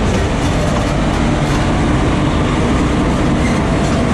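Indian Railways WAP-4 electric locomotive moving past on the next track: a steady, loud rumble of wheels on rail with a low hum underneath.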